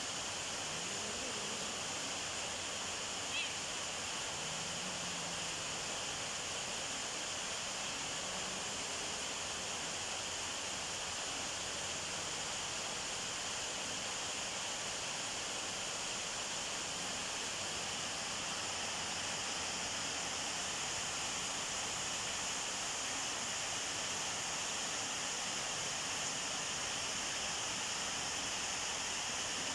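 Steady high hiss, with faint low growls from a mating cat now and then over the first dozen seconds, and one short click about three seconds in.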